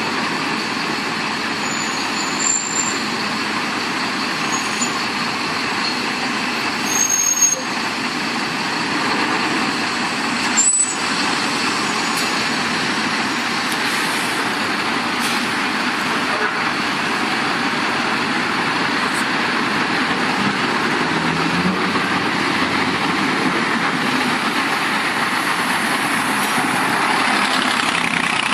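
Single-deck diesel buses at a bus station, running as a steady engine and traffic noise. A few short high squeaks come about two, five and seven seconds in, and a sharp click comes near eleven seconds.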